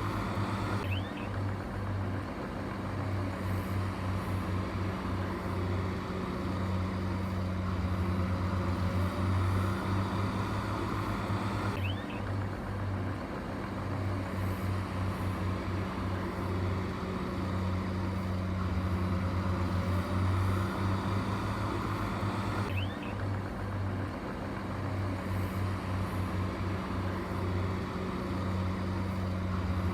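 Heavy machinery engine running steadily with a deep, even hum; the same stretch of sound repeats about every eleven seconds.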